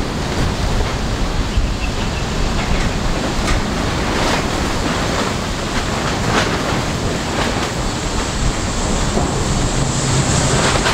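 Wind buffeting the microphone: a steady rushing noise with a few gusts. Near the end the ATR 72-600's twin turboprop engines come up as a steady low drone with a high whine as the aircraft draws near.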